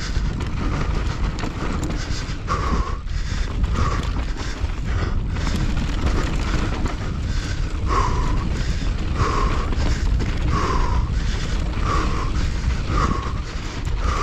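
Mountain bike being ridden hard down a rough, loose dirt trail: tyres on dirt and the bike rattling, under a steady rush of noise. Over it the rider is breathing hard, with a heavy breath about every second and a bit, regular from the middle on.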